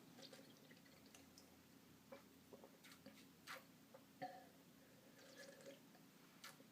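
Faint sipping and swallowing of water, a handful of small wet clicks and gulps over quiet room tone.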